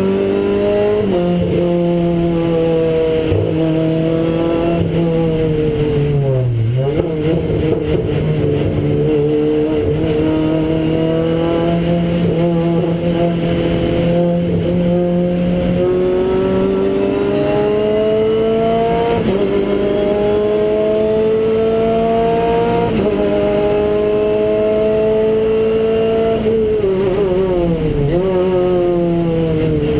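Renault Clio Cup race car's four-cylinder engine heard inside its stripped cabin at racing speed. The pitch climbs slowly through long stretches and drops at shifts, with sharp plunges in pitch about a third of the way in and again near the end as the car slows.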